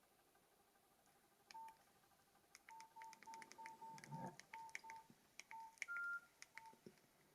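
Nokia 6600 slide keypad being pressed, each key giving a short single-pitch key beep with a faint click. About a dozen presses come in a quick run in the middle, with one higher beep near the end and a soft handling thump partway through.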